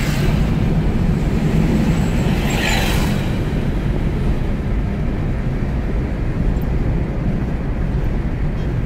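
Steady road and engine rumble inside a moving car's cabin, with a brief whoosh about three seconds in as an oncoming truck passes.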